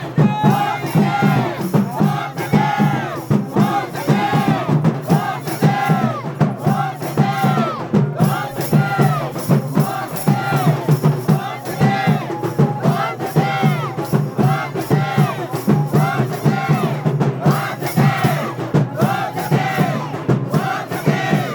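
A crowd of many voices shouting and chanting together over continuous rhythmic percussion and music.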